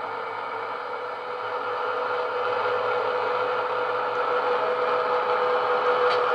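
Sound-decoder recording of a Class 70 diesel locomotive's engine running, played through the model locomotive's small EM1 speaker, with a steady tone throughout. It grows louder from about a second and a half in.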